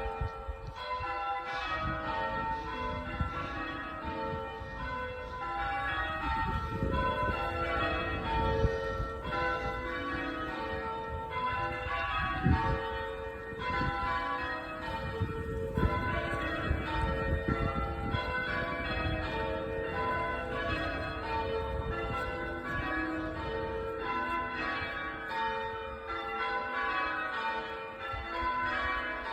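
The front five of an eight-bell ring of church bells, cast by Taylor's of Loughborough in 1920, rung one after another in a steady, continuous pattern. A low rumble runs underneath the bells.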